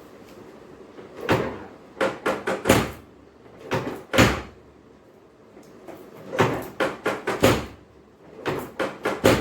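Repeated dull thumps in quick clusters of three to five, with short pauses between the clusters.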